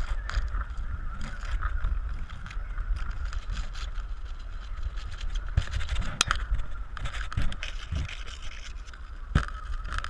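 Wind buffeting the microphone of a GoPro camera hanging below a kite, with a steady wavering whistle over the rumble. A few sharp knocks come as the camera rig swings, one about six seconds in and another near the end.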